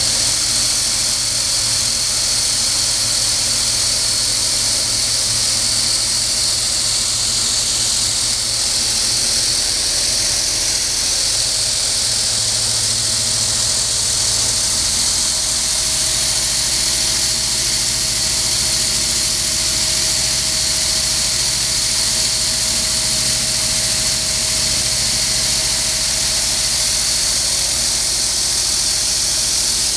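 Small stainless steel olive paste machine running after start-up: a steady, loud whir and hiss over a low motor hum. A faint steady tone joins about ten seconds in and holds until near the end.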